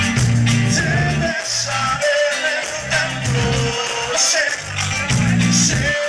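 A live rock band playing in a small club: drums, bass, electric guitar and keyboards.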